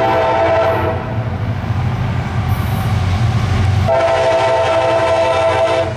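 Diesel freight locomotive's air horn sounding for track workers: one blast that cuts off about a second in, then another from about four seconds in, over the low, steady rumble of the passing train.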